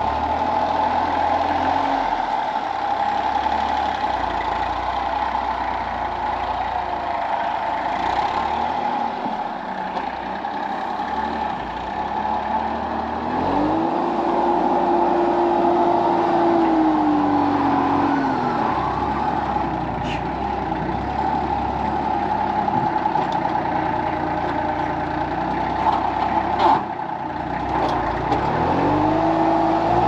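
Compact tractor's engine running under load while it pushes snow with a rear blade. The engine pitch rises a little before the middle, holds a few seconds, drops back, and rises again near the end. There is a brief knock just before the end.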